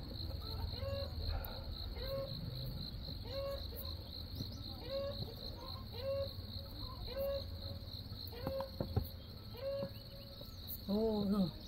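Steady high-pitched insect trill, with a short call repeated about once a second over it.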